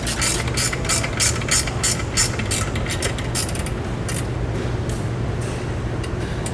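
Socket ratchet wrench clicking quickly, about five clicks a second, as lock nuts are backed off the studs on a trailer jack's top plate. The clicking thins out to a few scattered clicks after about three and a half seconds.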